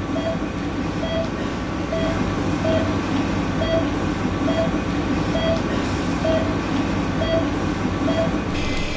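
Patient monitor beeping evenly a little faster than once a second, one short tone per heartbeat, over a steady low rumble.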